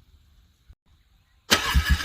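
A car engine being cranked over by its starter in deep cold, struggling to start. The cranking cuts in suddenly about one and a half seconds in, with a rapid, even pulsing.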